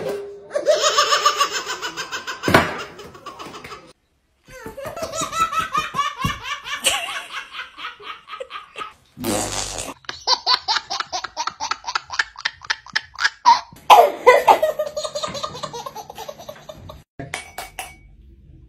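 Babies laughing in long runs of quick, rhythmic giggles and belly laughs, a few clips in a row with short breaks between them.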